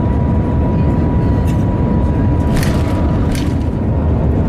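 Shanghai Maglev at high speed heard from inside the passenger cabin: a loud, steady low rumble. A faint high whine runs through the first half, and a few faint ticks come near the middle and later.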